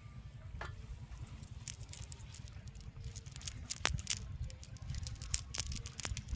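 Cast net being handled by hand: the mesh rustling and its row of metal sinkers clicking against each other in scattered, irregular sharp clicks, over a low steady rumble.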